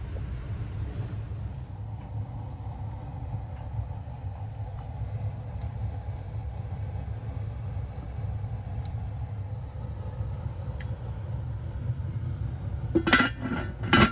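Steady low rumble of a cast iron pot of vegetable broth boiling on a wood stove. Near the end, a heavy cast iron lid is set on the pot with two loud metal clanks about a second apart.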